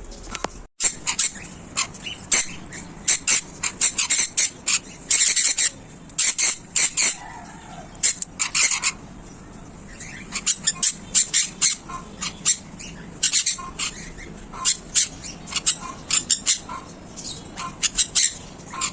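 Sun conures squawking: many short, shrill calls in quick runs, with brief pauses between.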